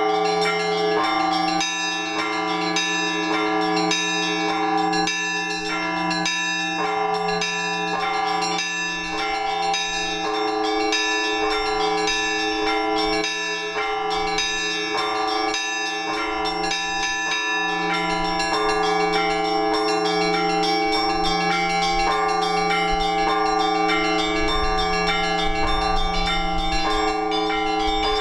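Orthodox church bells being rung by a bell ringer: small bells struck in quick, continuous strokes over the steady hum of the larger bells, with no break.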